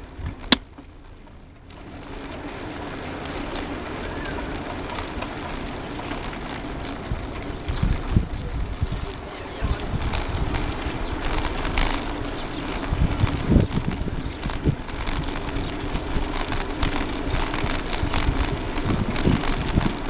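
Wind buffeting the microphone over the rumble of tyres rolling along a concrete path while cycling, with irregular low thumps and a faint steady hum. There is one sharp click about half a second in.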